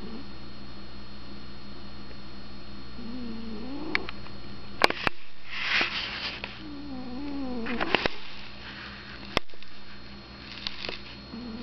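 Sleeping cat snoring loudly, in slow breaths a few seconds apart: each a wavering, pitched snore followed by a hissing breath, with a few sharp clicks about halfway through.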